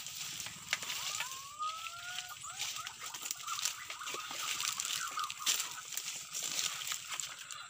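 Footsteps pushing through forest undergrowth: irregular crackling of dry leaves and twigs underfoot. A short rising whistle comes about a second and a half in.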